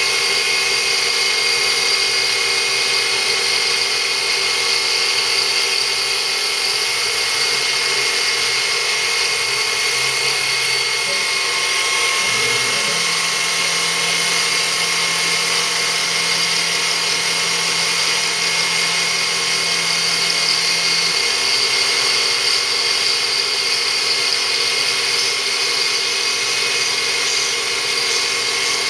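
PM-940 CNC milling machine taking a finish pass in 6061-T6 aluminium with a 5/8-inch three-flute carbide end mill under flood coolant: the spindle whines steadily as the cutter chews through the metal. A lower hum comes in near the middle and stops about eight seconds later.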